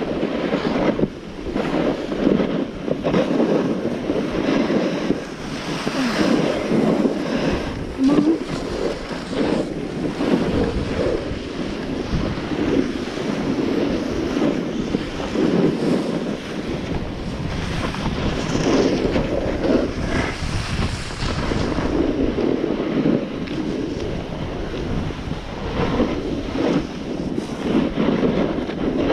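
Wind buffeting the microphone of a skier moving downhill, mixed with skis scraping over packed snow; a rough, rushing noise that swells and fades every second or two.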